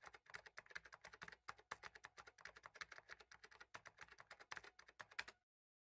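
Faint, rapid computer-keyboard typing clicks, several a second, that stop shortly before the end.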